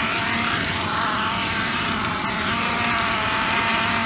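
A small battery-powered toy race car's electric motor whirring steadily as the car drives around a plastic race track.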